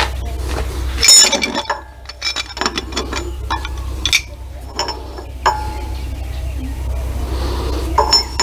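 Steel transmission gears clinking against each other and against the splined shaft as they are handled and slid into place: a scattering of sharp metallic clinks with a brief ring, the loudest about a second in.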